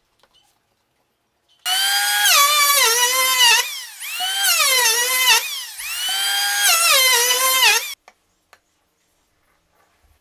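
Electric hand planer running and cutting along a dark hardwood block in three passes, its loud whine dropping in pitch during each pass and climbing back between them. It starts abruptly about two seconds in and stops abruptly about two seconds before the end.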